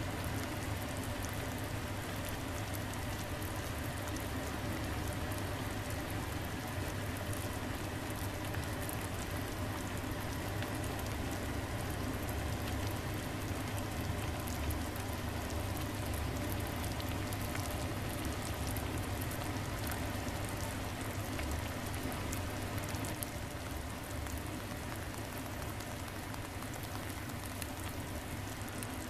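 Hotpot broth simmering in a clay donabe on a portable gas stove: steady bubbling with many small pops and crackles.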